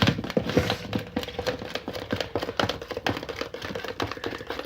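Rapid, irregular clicking and tapping from stirring and handling thick homemade slime in its container, with a faint steady hum underneath.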